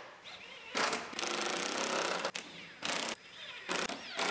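Cordless power tool running in several short bursts, the longest about a second, as it drives in the bolts that hold the HVAC box to the firewall.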